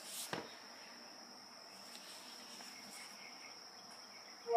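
Quiet stretch with a faint steady high-pitched whine, then, near the end, a short rising two-note electronic chime from a phone: Cortana's listening tone, signalling that the voice assistant is ready for a question.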